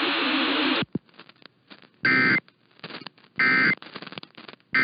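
Emergency Alert System end-of-message code: three short, identical raspy two-tone digital data bursts about one and a half seconds apart, signalling the end of the alert.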